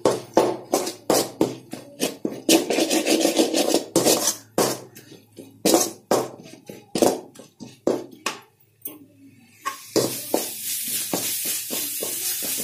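A metal spatula scraping and stirring thick masala around a metal pan, in quick irregular strokes. About ten seconds in, a steady frying sizzle comes up under the stirring.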